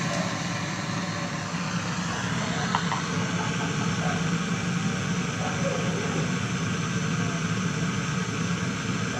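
Steady machine noise: a low hum under an even hiss, running unchanged.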